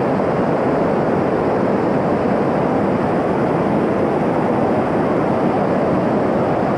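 Mountain stream rushing down a steep rocky cascade: a loud, steady roar of white water close to the microphone.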